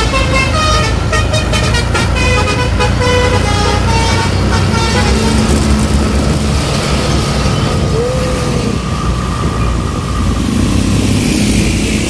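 Bus's basuri telolet horn playing a quick tune of short stepped notes for about five seconds, over the steady running of the bus engine, which carries on alone after the tune ends.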